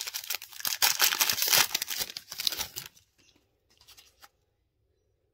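Foil wrapper of a Panini Fortnite trading-card pack being torn open and crinkled: dense crackling tearing for about three seconds, then a few faint clicks as the cards are slid out.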